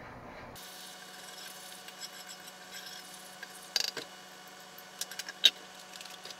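Milk poured from a plastic jug into a hot cast iron breakfast skillet of eggs, with a faint sizzle. A few sharp plastic clicks and knocks follow in the second half as the jug is handled.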